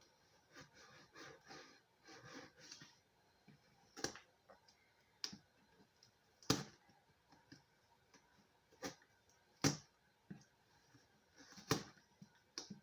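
Cardboard and plastic packaging of a vinyl figure box being handled and opened: soft rustling in the first few seconds, then several sharp, separate clicks and taps.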